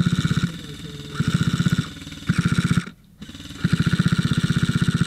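Airsoft guns firing on full auto: four fast, rattling bursts of shots, the last the longest.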